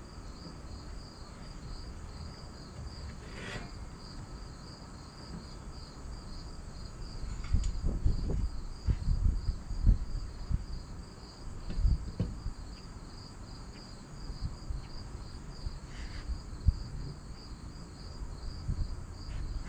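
Dull knocks and clunks of angle-iron roof-rack bars being set and shifted on a truck topper's roof, mostly from about eight to twelve seconds in. A steady, high pulsing chirp of insects runs underneath.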